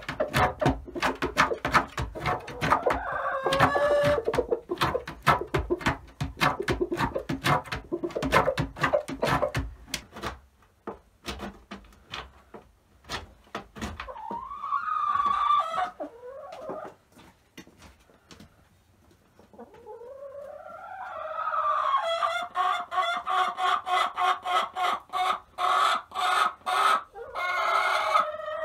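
A hen clucking rapidly for about ten seconds, then a rising call about halfway through, and near the end a long, loud run of repeated cackling calls that stops suddenly.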